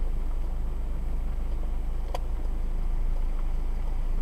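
Steady low engine and road rumble of a car moving slowly, heard from inside the cabin, with a single sharp click about two seconds in.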